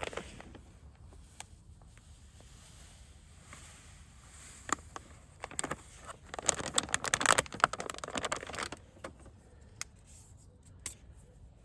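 Close handling noises: scattered clicks and light rustling, with a busy stretch of scraping and crackling for a couple of seconds in the middle.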